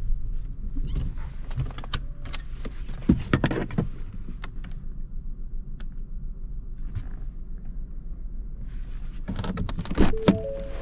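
Low steady hum inside a car with a scatter of sharp clicks and knocks, a cluster of them about a second in and again near the end. A few short steady tones at three pitches sound near the end.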